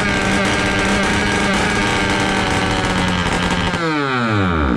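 JetSurf two-stroke engine running at a steady high speed with no resonator exhaust fitted, no load on it, and its carburettor not yet tuned. Near the end the revs fall away quickly as it winds down and stops.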